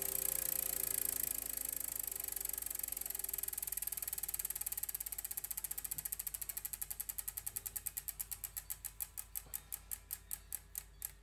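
Music fading out under a fast run of clicks that slows steadily, the clicks spacing out further and further apart, like something spinning down, until they stop.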